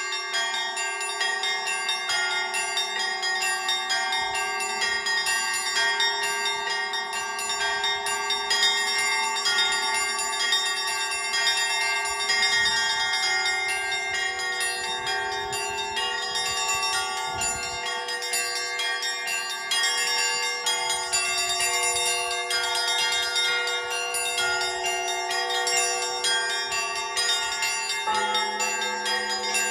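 Orthodox church bell ringing: a bell ringer plays a set of church bells, many bells struck in quick succession so their ringing tones overlap continuously. A deeper bell joins near the end.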